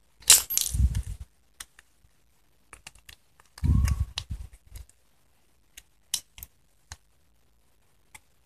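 Small metal parts of a disassembled miniature circuit breaker mechanism clicking and clinking as they are handled and worked with a hand tool. There are two louder bouts of handling noise, about half a second in and around four seconds in, then scattered single clicks.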